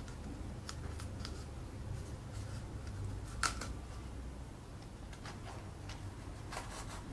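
Small handling sounds of cardboard and sticky tape being pressed down: light rustles and taps, with one sharper click about three and a half seconds in, over a faint low hum.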